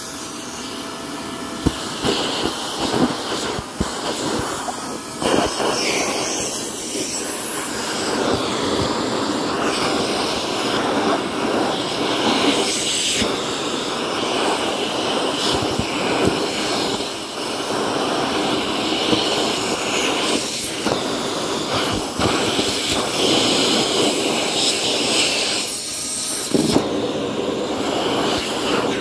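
Vacuum cleaner running on a rug, a steady motor-and-airflow noise whose tone shifts every few seconds, with scattered clicks in the first few seconds.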